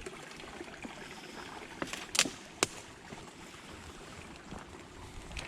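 Small creek's water running steadily, with three sharp clicks or knocks about two seconds in, the middle one the loudest.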